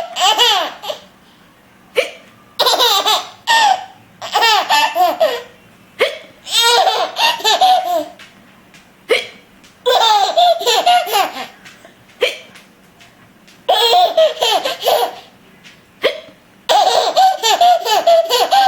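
A woman hiccuping five times, about every three to four seconds, each short sharp hiccup followed by a baby's burst of belly laughter lasting a second or two.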